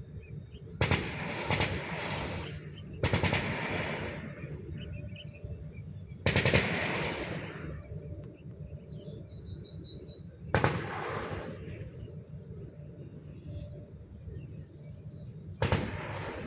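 A person coughing from whooping cough: about six harsh, sudden coughs at irregular intervals, each dying away over about a second. Faint bird chirps in the background.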